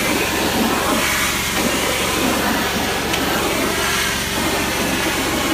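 Hot-water extraction tile spinner tool working over porcelain floor tile: a steady, loud rushing hiss of hot spray and vacuum suction over a low, constant machine hum.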